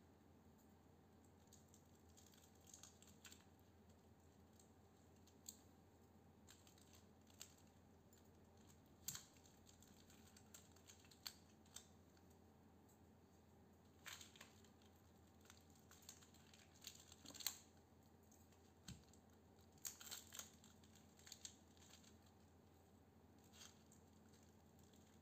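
Copper winding wire being unwound by hand from a toroidal transformer core: faint, irregular clicks, ticks and short rustles as the wire scrapes and springs against the core and the steel plate.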